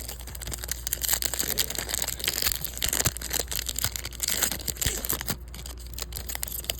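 A trading card pack's wrapper crinkling and tearing as it is opened and handled: a dense crackle that eases off about five and a half seconds in.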